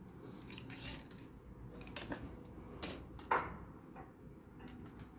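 Handling noise from a steel tape measure stretched across a black metal mesh document tray: rustling, then three sharp clicks about a second apart, the last followed by a short falling wobble.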